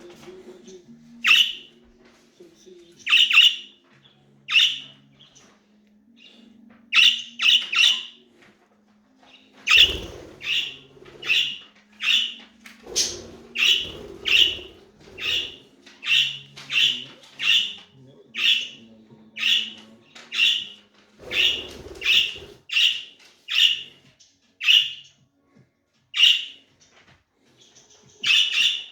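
Budgies squawking: short, harsh, high calls. They come singly at first, then repeat steadily about twice a second from about ten seconds in.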